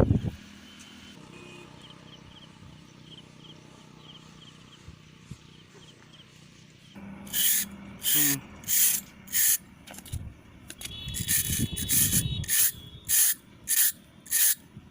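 Repeated short scraping strokes of a hand tool on a concrete surface, starting about seven seconds in and going at roughly one or two strokes a second, with a pause near the ten-second mark.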